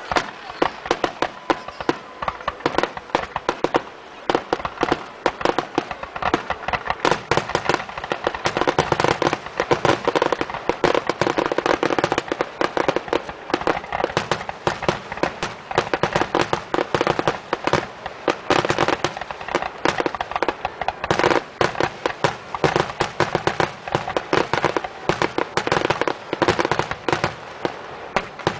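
Aerial fireworks going off in a dense, rapid barrage of bangs, many reports a second, stopping abruptly near the end.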